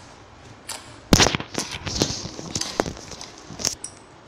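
Clear glitter slime being poked and squeezed by fingers, giving a quick run of sharp pops and crackles. The popping starts about a second in and stops about two and a half seconds later.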